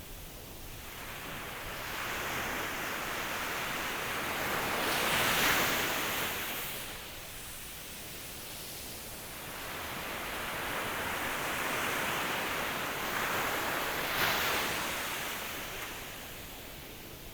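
Ocean waves breaking and washing on the shore, two swells in turn: each builds to a hissing peak and then draws back.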